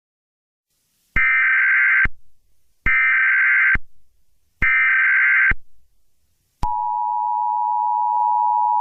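Emergency Alert System tones. About a second in come three bursts of SAME header data, each about a second long, a harsh electronic screech. After a short gap the steady two-tone EAS attention signal begins and holds, announcing an alert broadcast.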